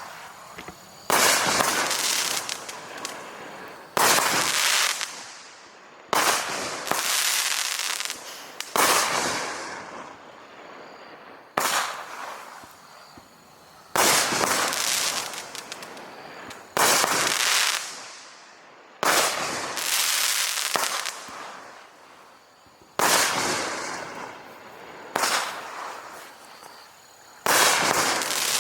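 Aerial consumer fireworks going off in a steady sequence: a sharp bang about every two to three seconds, each followed by a fading tail.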